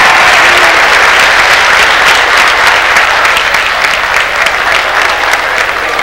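A large crowd applauding. The clapping slowly dies down, so that single claps stand out more near the end.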